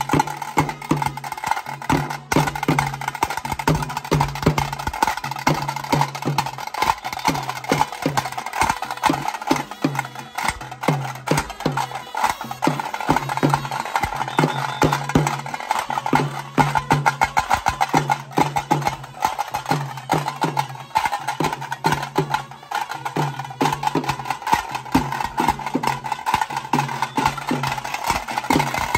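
Procession drum troupe playing dhol and tasha drums with sticks: a fast, dense beat of stick strikes over a repeating low drum pulse.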